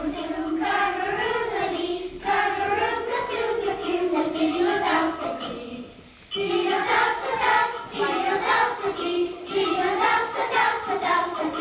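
A group of young children singing together in unison, with a short break about six seconds in.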